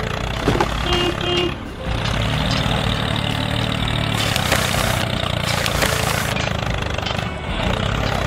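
Steady engine rumble like a heavy machine running, heard with a toy excavator digging in sand. A short double tone sounds about a second in.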